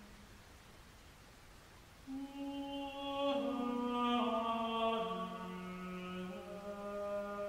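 Slow drone music of long held notes, each with a rich stack of overtones. A held tone fades out at the start, then comes a quiet gap of about two seconds. A new note enters about two seconds in, and more notes layer over it and step up and down in pitch, loudest around the middle.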